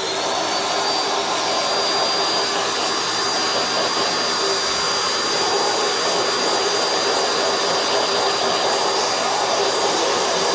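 Vacuum cleaner with a brush head running steadily as it is passed over a laptop's keyboard and screen bezel to lift dust. Its high motor whine climbs to a steady pitch in the first second after switch-on.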